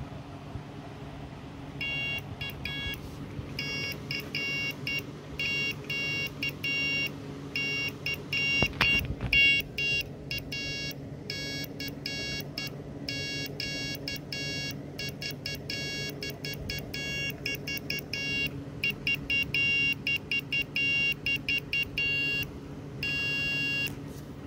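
Homebrewed code practice oscillator's miniature buzzer sounding a steady CW tone, keyed on and off by its micro switch in short and long beeps like Morse dots and dashes. A single knock sounds near the middle, and a faint low hum runs underneath.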